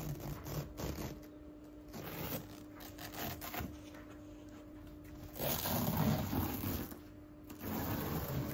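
Fabric sofa cover being pulled and smoothed over the cushions: cloth rustling and rubbing in uneven bursts, loudest a little past halfway, over a faint steady hum.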